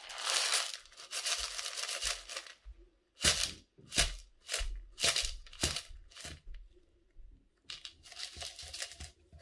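Small white gravel tipped from a plastic tub onto a houseplant's potting soil as a top dressing: a rustling hiss, then five or six sharp clatters, then more rustling near the end.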